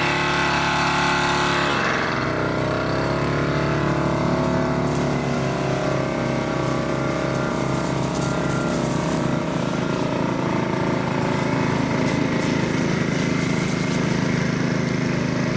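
An engine running steadily, its pitch shifting about two seconds in and then holding even.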